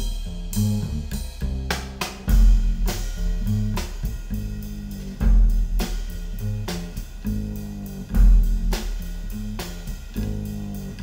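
Jazz song playing through Cabasse Antigua MC170 hi-fi loudspeakers, picked up by microphones in the room: an instrumental passage with deep bass notes, guitar and drum hits and no singing.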